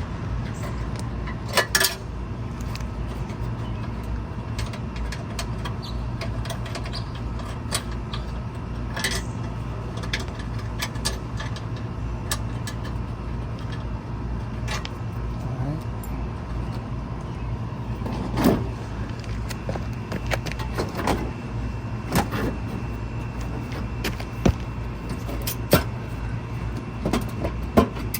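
Scattered metallic clicks and clanks of hand tools and car parts being handled, over a steady low hum.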